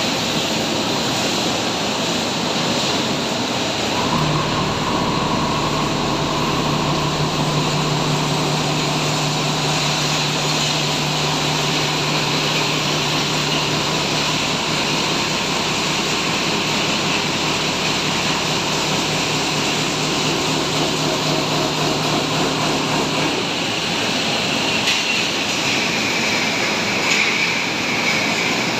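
Twin hammer mill running with a loud, steady rushing noise. A steady low hum comes in about four seconds in and drops out again several seconds before the end.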